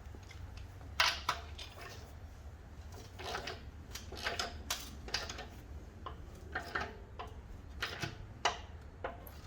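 Irregular metallic clicks and clinks of a socket wrench working on the bolts of the plow's mounting blocks, a couple of sharp clicks a second, over a low steady hum.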